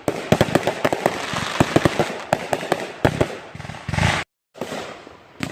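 Backyard consumer fireworks going off: a rapid, irregular string of sharp bangs and crackles, with a heavier boom about four seconds in, after which the audio cuts out for a moment.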